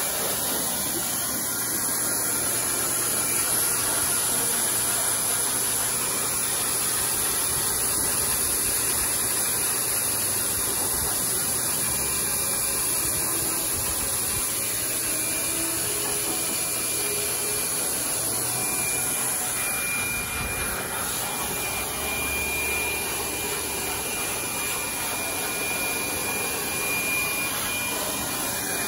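High-velocity dog grooming blower running steadily, a loud rushing hiss of air from its hose nozzle as it blows out a Siberian husky's shedding undercoat. A thin high whine joins the rush about halfway through.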